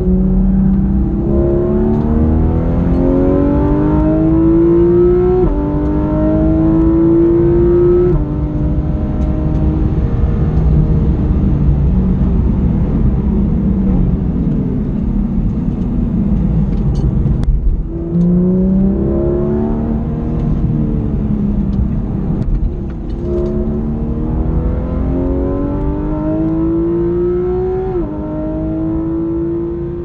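Porsche 911 GT3 RS's 4.0-litre naturally aspirated flat-six, heard from inside the cabin, accelerating hard. The pitch climbs and drops sharply at each upshift of the seven-speed PDK gearbox. In the middle comes a steadier stretch at lower revs off the throttle.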